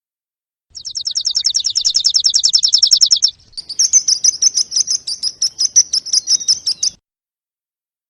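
A songbird singing. It opens with a fast, high trill of about twelve notes a second lasting some two and a half seconds, then changes to a slower run of repeated high chirps that stops about a second before the end.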